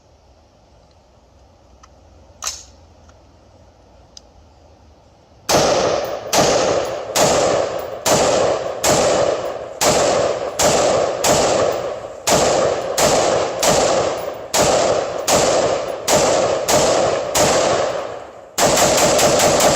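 Armalite AR-15 semi-automatic rifle in .223 Wylde firing a string of shots, about one and a half a second, starting about five seconds in after a single click. Near the end the shots come much faster, almost continuous.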